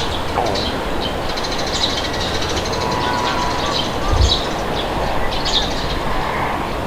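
Steady wind with birds chirping, short high calls repeating about once a second. A brief low thump comes about four seconds in.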